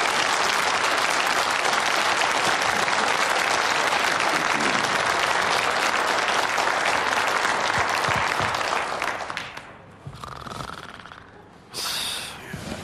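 Studio audience applauding, a dense, even clapping that fades out about nine seconds in.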